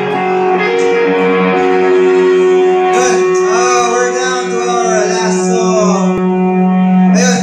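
Live rock band playing: electric guitars holding long sustained chords, with cymbal wash and a wavering melody coming in about three seconds in.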